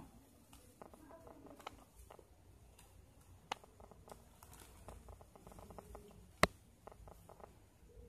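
Plastic basket wire rustling and clicking faintly as hands thread it through woven knots, with a sharper click about three and a half seconds in and a louder one a little after six seconds.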